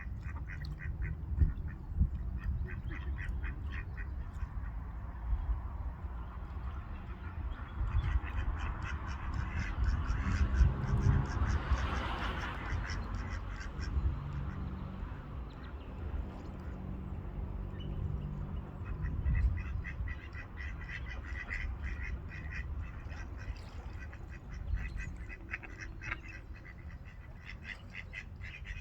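Ducks quacking, many quick calls in a row, coming in bursts, over a steady low rumble.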